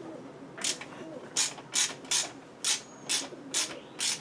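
Hand socket ratchet wrench clicking in short back-and-forth strokes, about two a second, worked on a bolt at a small microcar engine.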